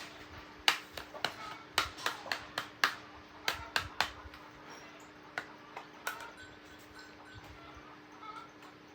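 Sharp, irregular clicks and taps of metal tools and small parts being handled during a chainsaw repair: about a dozen in quick succession, then a couple more. A steady low hum runs underneath.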